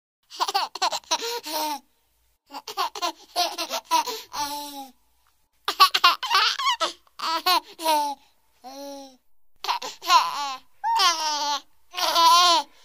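A baby laughing in a string of giggling bouts, each a second or two long with short pauses between.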